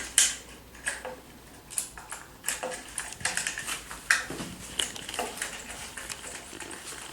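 Screws being turned by hand to fix a bidet seat's plastic mounting board to the toilet: a run of small, irregular clicks and scrapes.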